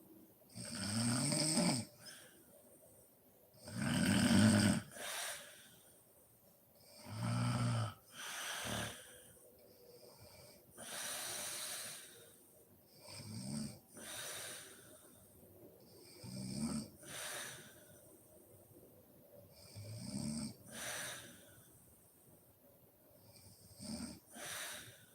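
A woman snoring in her sleep: a pitched snore on most breaths, with breathy huffs between, about one breath every three to four seconds. The first few snores are the loudest.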